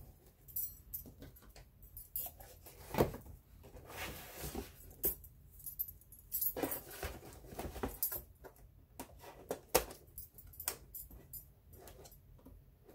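Stacked metal bangle bracelets jangling and clinking in irregular bursts as the hands move, mixed with taps and scrapes of a cardboard box being handled and cut with scissors.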